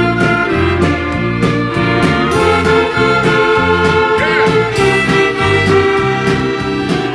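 A large gospel band plays live: violins, brass and a drum kit with cymbals, over a bass line that moves in steady steps.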